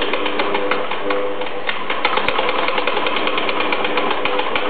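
CB7205 cylinder-arm, triple-feed heavy-duty sewing machine running, stitching through three layers of leather: a rapid, even clatter of needle strokes over a steady hum.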